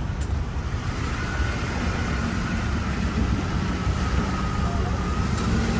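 Ford pickup truck's engine pulling a boat trailer up the ramp and out of the water, a steady low rumble that gets slightly louder toward the end.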